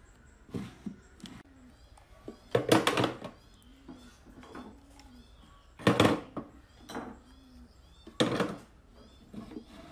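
Wooden knocks and clatter of hand tools being set into the open wooden drawer of a handmade bread box: three loud knocks, one a few seconds in, one near the middle and one near the end, with lighter clicks between them.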